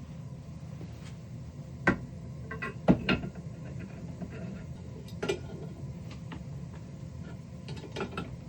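Several sharp clinks and knocks of small hard objects being handled and set down, over a steady low hum.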